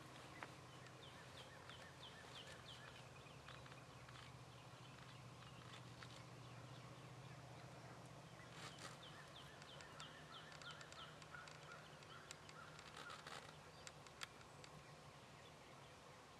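Faint bird calls over quiet outdoor ambience: a quick run of short, repeated falling notes about a second in, and another run later, with a few sharp clicks between them.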